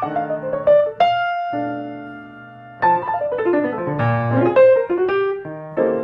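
Solo piano music: a falling run of notes, then a chord held and fading for about two seconds, then more quick runs of notes.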